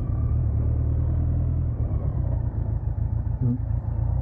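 BMW K100 motorcycle's inline-four engine running at low speed, with a steady low drone that breaks up into an uneven rumble a little under two seconds in.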